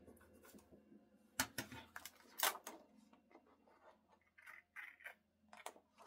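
Quiet handling of paper and washi tape: a few light taps and short rustles as the tape is pressed and smoothed onto a paper page, then small scissors snipping at the tape's edge near the end.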